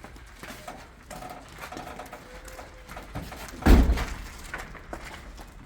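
Scattered small knocks and clicks in a small room, with one loud, heavy thump about two-thirds of the way through.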